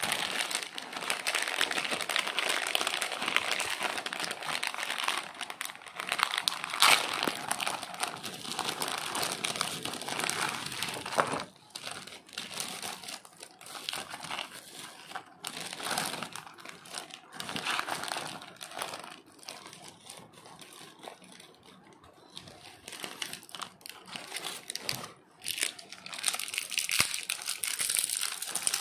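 Clear plastic pouches and cellophane wrap crinkling and rustling in the hands as jewellery is unwrapped. The handling is busiest for the first ten seconds or so and again near the end, with sparser rustles between.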